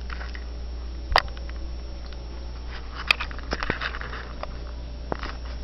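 Cats eating from a plastic food bowl: chewing and crunching, with a few sharp knocks, the loudest about a second in and another about three seconds in. A steady low hum lies under it.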